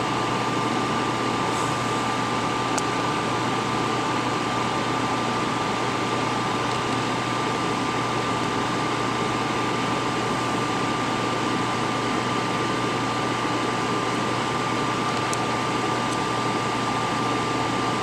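Steady fan-like hum and hiss, even in level throughout, with a constant whine running through it.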